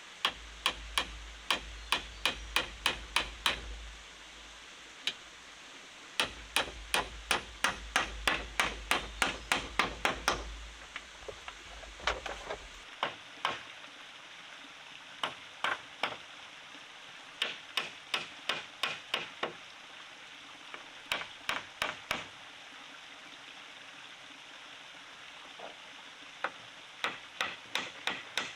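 Hammer blows in quick runs of about three or four strikes a second, with short pauses between the runs, as in nailing boards for a door or wall.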